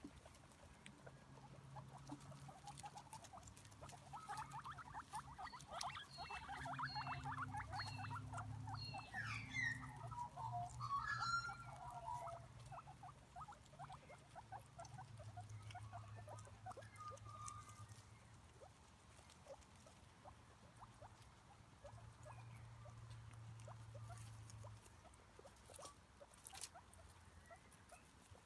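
Faint, rapid pattering and scratching, with a run of short, high squeaks in the first half, typical of a small animal moving and foraging. A low hum runs underneath.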